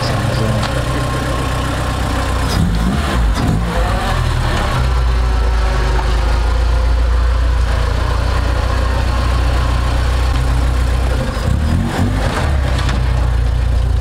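Engine and aftermarket catback exhaust of a B20-swapped Honda Civic hatchback running at low revs as the car is driven off, a steady low drone that gets stronger about five seconds in.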